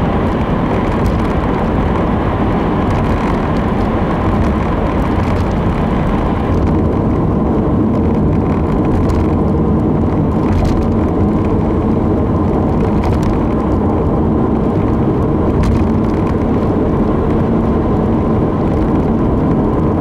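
Steady road noise inside a Subaru XV cruising on an expressway: tyre roar and engine hum. The higher hiss drops about six or seven seconds in as the car leaves a tunnel, and a few faint ticks follow.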